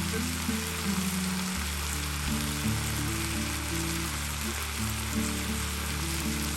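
Food sizzling steadily in a frying pan, under background music with a bass line.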